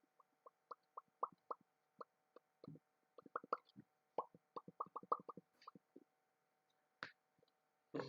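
A faint, irregular run of short pops, many with a brief pitched ring, coming thicker and faster in the middle.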